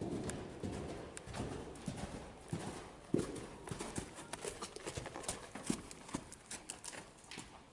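Hoofbeats of a ridden horse moving over sand arena footing: a run of dull, irregular thuds, loudest about three seconds in as the horse passes close by.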